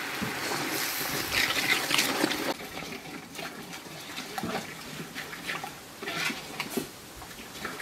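Chicken curry sauce bubbling in a large metal pot, louder for the first couple of seconds. Then a ladle stirs it, with liquid sloshing and a few short knocks of the ladle against the pot.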